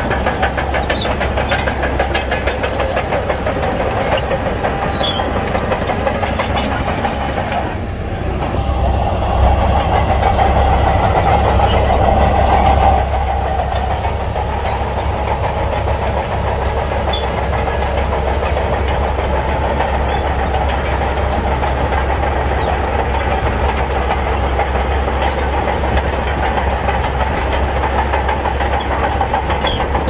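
Shantui crawler bulldozer's diesel engine running under load, with its steel tracks clanking as it pushes a heap of sand with the blade. It grows louder for a few seconds about a third of the way in.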